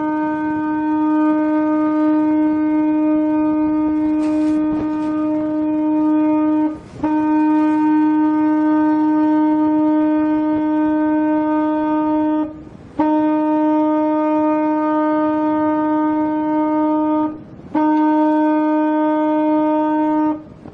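Ship's horn sounding four long, steady blasts in a row, each broken off by a short gap of about half a second.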